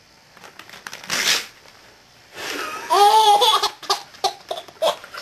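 A sheet of paper torn once about a second in, followed by a baby laughing in a run of short bursts.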